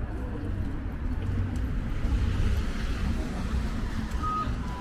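Street traffic: a car passes, its tyre and engine noise swelling and fading about two seconds in, over a steady low rumble of other traffic. Near the end, short electronic beeps start, alternating between two pitches.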